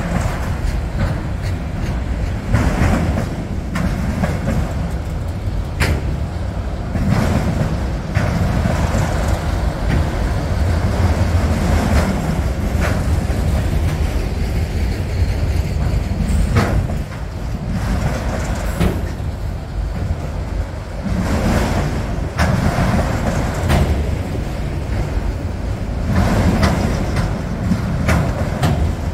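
Freight train's autorack cars rolling past close by: a steady low rumble of steel wheels on rail, broken by scattered clicks and clanks.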